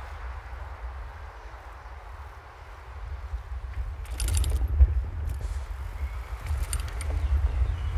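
Riding a bicycle: a steady low rumble of wind on the microphone, with two short bursts of rapid ticking, about four and about seven seconds in.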